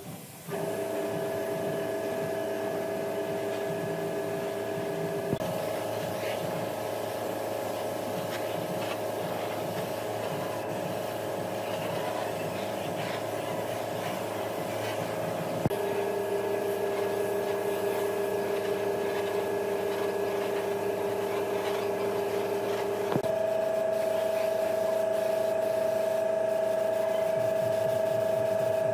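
A woodworking power tool running steadily, a motor whine with a rough working noise over it; the whine shifts abruptly to a new pitch about five, sixteen and twenty-three seconds in.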